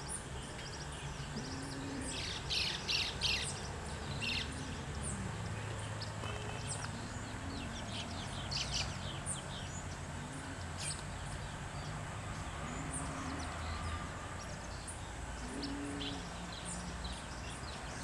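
Forest birds calling: bursts of high, sharp chirps, loudest about two to three and a half seconds in and again near nine seconds, over a soft low call repeated every couple of seconds.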